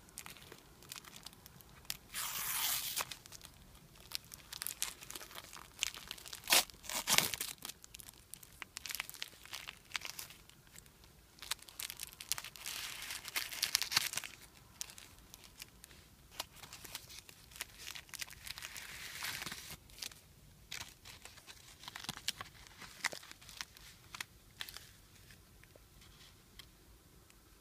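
Thin plastic film wrapper of a convenience-store rice ball being torn and peeled off, crinkling in several bursts with sharp little snaps of the film between them.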